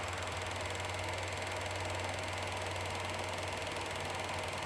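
Honeywell Elmo FP8-C Dual 8 film projector running steadily with an even mechanical hum, its dial set to still-frame projection.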